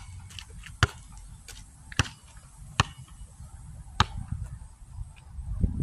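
Basketball bouncing on an asphalt court: a string of sharp, single thuds about once a second as it is dribbled.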